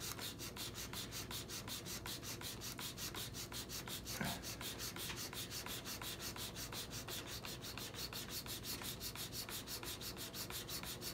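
An old chisel's steel bevel being rubbed rapidly back and forth on the sharpening stone of an MPower FastTrack Mk2 guided sharpener, in a fast, even rhythm of strokes. There is a brief knock about four seconds in.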